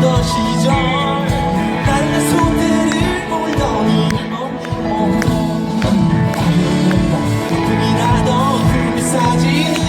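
Live pop-rock band playing loudly: a steady drum beat under bass and electric guitars with sustained notes.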